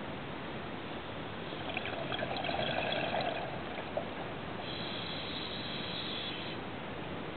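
A scuba diver's regulator breathing underwater over a steady hiss from the camera housing. Two louder stretches of breath noise come about two seconds in and about five seconds in.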